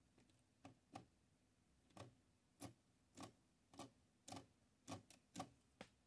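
Faint, irregular light taps and clicks, about a dozen at roughly two a second, as a kneadable eraser is dabbed against the metal type slugs of a typewriter's typebars to pick up dried ink.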